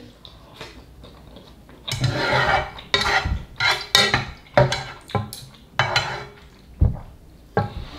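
Wooden chopsticks and a wooden ladle knocking and scraping against a metal pot while stirring and fishing for noodles in soup. The clatter starts about two seconds in, as a string of short knocks and scrapes.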